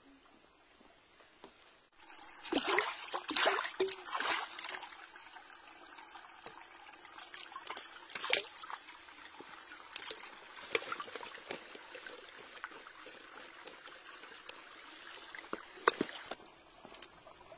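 Water trickling and spraying from a hand-pump spray bottle squeezed onto rocks and a shallow stream. A run of loud spray hisses comes about two seconds in, then a steadier trickle with a few sharp clicks.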